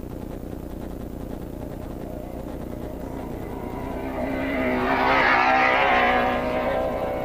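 An off-road race vehicle's engine passing close by: it builds up, is loudest about five seconds in, and fades away with a slight drop in pitch.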